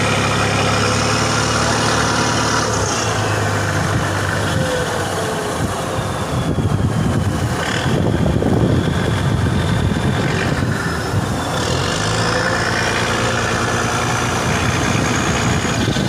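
Fishing boat engine running steadily, with a louder rush of water and wind in the middle as the boat works through heavy breaking waves.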